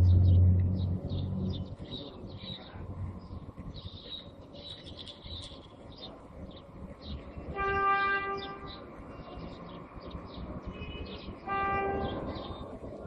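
A low rumbling boom at the start dies away over about a second and a half. Birds chirp steadily throughout, and a horn sounds twice, about a second each time, around eight and twelve seconds in.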